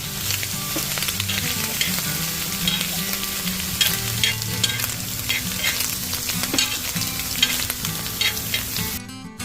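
Food sizzling in a frying pan as it is stirred, with scattered scrapes of the utensil against the pan. The sizzle cuts off suddenly near the end.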